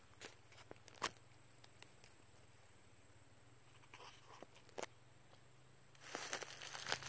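Quiet outdoor ambience with a faint steady high-pitched whine and a few small separate clicks. About six seconds in, a loud crackling rustle of dry leaves and twigs starts.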